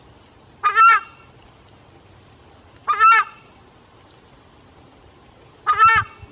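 Southern screamer (chajá, Chauna torquata) giving its loud two-note honking call, the cry its name is taken from, three times about two seconds apart.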